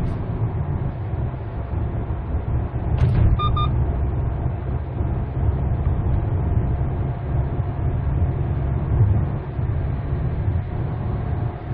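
Cabin noise of a 2014 Hyundai Santa Fe DM under way: a steady low engine and road rumble with a faint steady whine. A short double electronic beep sounds about three and a half seconds in.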